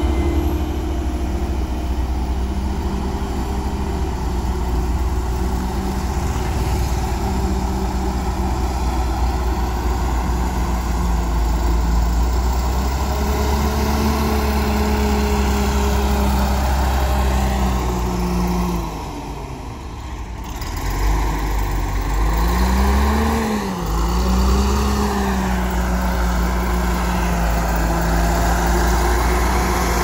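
Diesel engines of heavy earthmoving machines running close by: first a Bomag BW211D-40 single-drum road roller, then a Caterpillar motor grader. The engine note is a heavy rumble whose pitch rises and falls as the machine works, with a brief drop in loudness about two-thirds of the way through.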